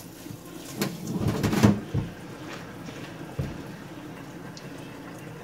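Water from a kitchen sink hand sprayer splashing through wet hair into a stainless steel sink, loudest about a second and a half in and ending with a sharp knock; after that only a faint hiss and a soft knock.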